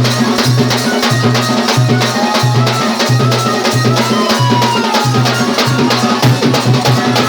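Saura tribal folk dance music: fast, dense drumming with a low tone pulsing about twice a second and a faint wavering melody line above it.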